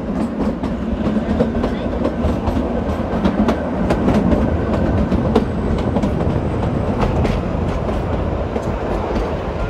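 Narrow-gauge Kalka–Shimla toy train running, heard close from an open coach window: a steady rumble of wheels and coaches with irregular clickety-clack clicks from the rails.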